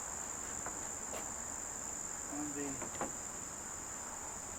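Insects chirring in a steady, unbroken high-pitched drone.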